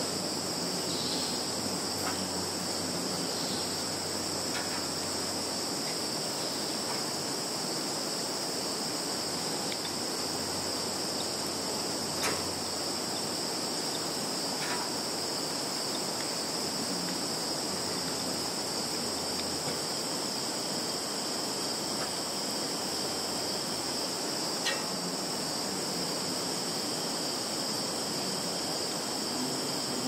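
A chorus of many field insects chirring in a continuous high-pitched drone that never breaks, with a couple of faint clicks.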